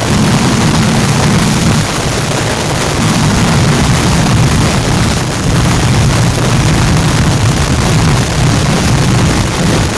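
Fireworks barrage: a dense, unbroken run of firecracker bangs so close together that they merge into one continuous, loud rumble.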